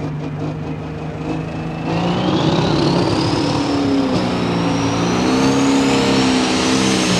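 Pro Stock pulling tractor's turbocharged diesel engine running steadily, then about two seconds in it gets louder as it accelerates, with the turbo's whistle climbing steadily in pitch.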